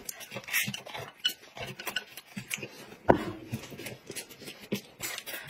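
Close-miked eating sounds: irregular chewing and slurping of noodles, with chopsticks clicking against the plate and one sharper click about three seconds in.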